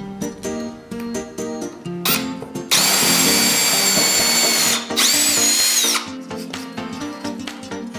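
Power drill boring holes in wood through a drill guide jig: it runs for about two seconds with a steady high whine, stops briefly, then spins up again for about a second before stopping. Light plucked-string background music plays throughout.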